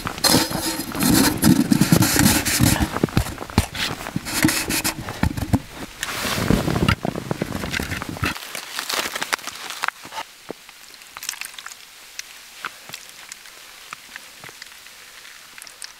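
Packed snow crunching and scraping as a small metal cook pot is pushed and scooped into it, with handling clicks. About eight seconds in this stops abruptly, leaving a quiet stretch with a few light clicks of handling.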